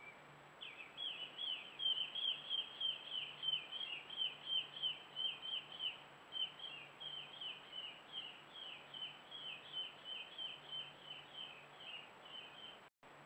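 A run of short, high chirps, each falling in pitch, repeated steadily at about three a second. The chirps start about half a second in and stop shortly before the end.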